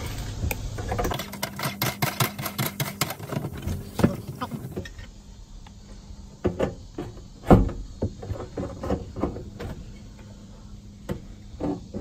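Stainless sink strainer's locknut being screwed on and tightened from under the sink: a run of quick clicks for the first few seconds, then scattered sharper knocks of the tool on the fitting.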